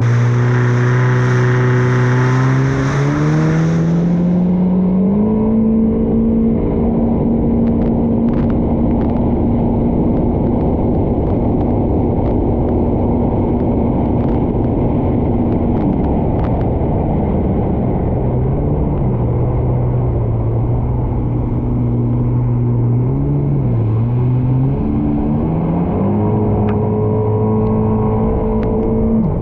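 Yamaha VXR WaveRunner's 1.8-litre four-stroke engine running under way, with water rushing against the hull. The engine climbs in pitch over the first few seconds and holds steady, drops back about halfway through, dips briefly and climbs again near the end.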